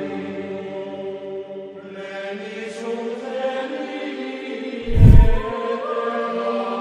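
Buddhist chanting: voices holding long, droning tones in several layers. One loud, low thump cuts in about five seconds in.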